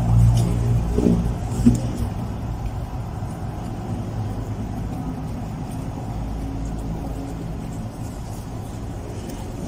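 A low, steady engine-like rumble, louder in the first two seconds and then settling. A couple of short mouth noises from eating sound about a second in and again shortly after.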